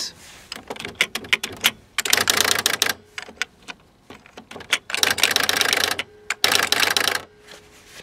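Packard Bell PB10TX electronic typewriter typing, with the half-space key in use: scattered single key clicks and strikes, and three dense runs of rapid strikes, each under about a second long.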